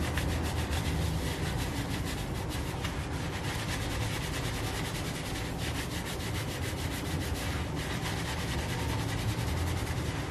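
Fingertips scrubbing shampoo-lathered wet hair: a steady rubbing made of many quick strokes.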